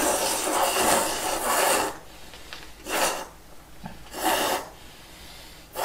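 A person slurping thick udon noodles in one go: one long slurp of about two seconds, then two short slurps about three and four seconds in.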